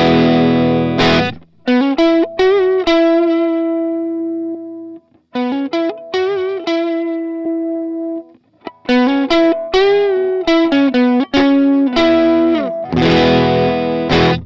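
Electric guitar played through a Line 6 POD Go amp modeler with overdrive: full strummed chords at the start and again near the end, with held single notes in between that bend and waver in pitch.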